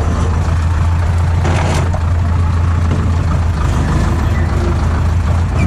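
Vehicle engine running steadily, a loud, even low drone, with a short noise about one and a half seconds in.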